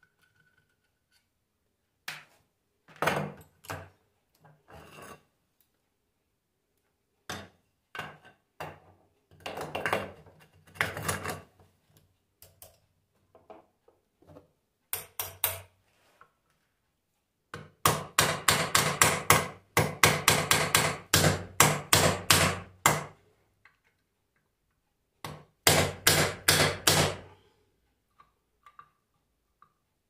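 Hammer blows on an alternator being dismantled, in about five bursts of quick taps with short pauses between, the longest run near the middle.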